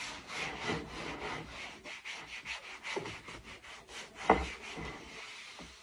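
Soft microfiber cloth rubbing back and forth over a wooden cutting board in quick strokes, buffing excess spoon butter (wood conditioner) off the surface. There is a single knock about four seconds in, and the rubbing fades out near the end.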